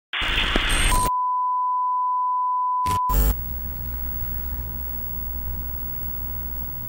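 A burst of TV static, then a steady 1 kHz test-tone beep held for about two seconds. It is cut off by a brief crackle of static, and a low steady hum follows.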